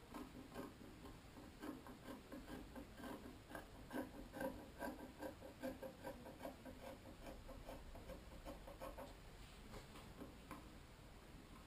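Sharp scissors snipping through doubled synthetic fabric: a steady run of faint snips, about two or three a second, fading out about nine seconds in.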